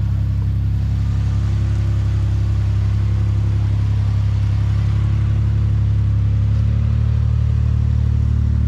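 Toyota Land Cruiser 80-series engine running at low, steady revs as the truck crawls along a dirt trail, with a slight change in pitch about six and a half seconds in.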